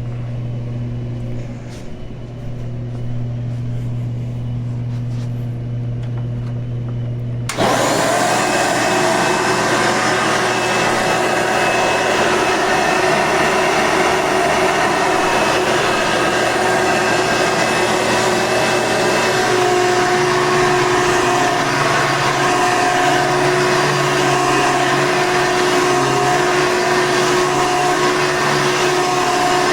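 An 8-amp Hoover Elite upright vacuum cleaner switches on about a quarter of the way in, after a steady low hum, and then runs steadily. About two-thirds of the way through, an extra steady whine joins the motor noise.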